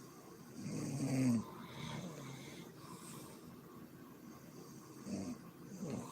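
A sleeping woman snoring: one loud snore with a pitched buzz that rises about a second in, a softer breath after it, and two short snores near the end.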